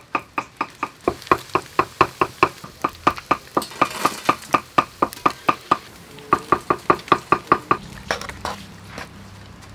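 Knife chopping rapidly on a cutting board: a steady run of sharp strikes, about five a second, each with a short metallic ring. The chopping stops a little before the end.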